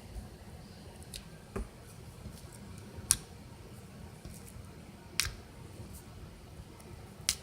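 Four short, sharp clicks, spaced about one and a half to two seconds apart, over faint room hiss.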